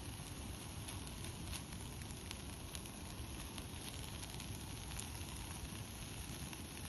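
Campfire burning, with occasional sharp crackles and pops at irregular intervals over a low steady hiss.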